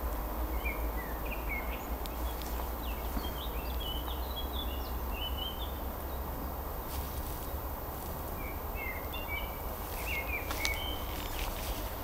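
Forest songbirds singing in two runs of quick chirping notes with a pause between, over a steady low rumble and a few light knocks from the handheld microphone.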